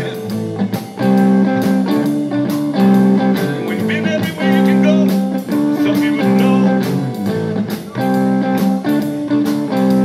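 Live blues-rock band playing an instrumental passage: electric guitar, bass guitar and drums, with a riff of held chords repeating over the beat.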